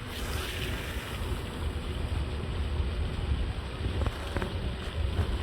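Water gurgling and washing, with an uneven low rumble of wind on the microphone.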